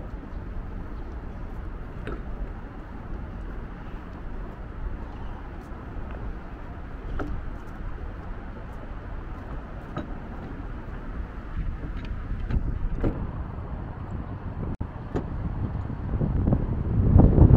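Outdoor city ambience: a steady low hum of distant traffic with a few faint clicks, and a rumble of wind on the microphone rising near the end.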